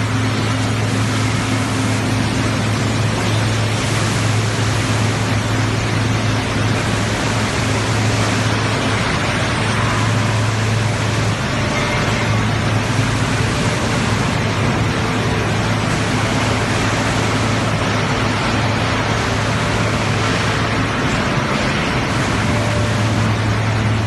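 PE film recycling and washing line running: a steady, loud machinery din of electric motors and conveyors with a strong low hum.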